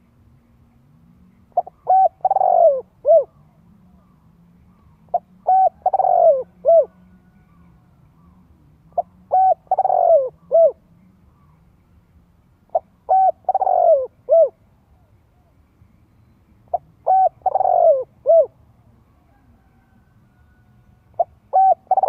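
A spotted dove cooing its song, the same short phrase repeated about every four seconds. Each phrase is a couple of short clipped notes, then a longer, louder note that falls in pitch, then a short final note.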